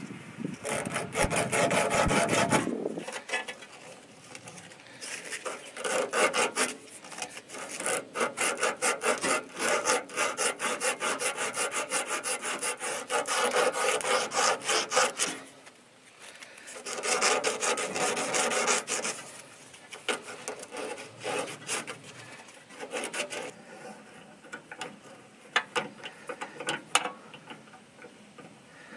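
A strip of abrasive cloth rubbed rapidly back and forth around a steel power steering line by hand, cleaning the tubing before it is cut and flared. The rubbing comes in three long stretches of fast strokes, then gives way to lighter clicks and scrapes near the end.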